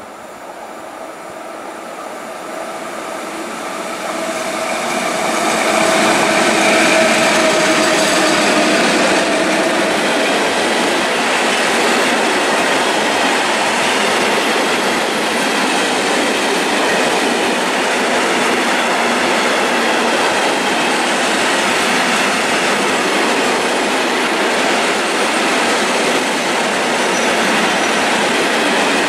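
A freight train of loaded open coal wagons, hauled by a pair of Škoda class 183 electric locomotives, passing close by. The sound grows louder over the first six seconds as the locomotives approach, with a held tone as they go by. Then comes the steady rolling noise and clatter of the wagons' wheels on the rails.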